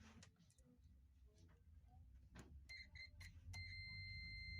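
Multimeter continuity beeper, faint: two short beeps past the middle, then a long steady beep near the end as the probes on the blender's power cord show the wire conducts. A few faint clicks of the probes touching.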